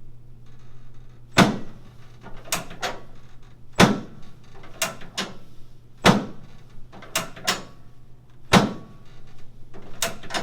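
Chiropractic drop table clacking during a repeated adjustment: four loud clacks about every two and a half seconds, each followed about a second later by two lighter clicks.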